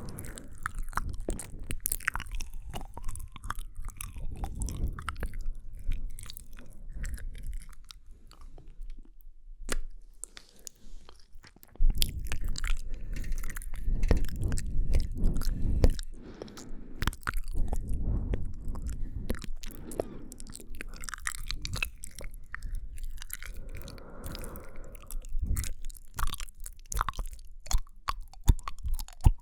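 Close-miked ASMR mouth sounds: a dense run of clicks, smacks and tongue sounds. They ease off briefly around ten seconds in, then come louder and thicker for a few seconds.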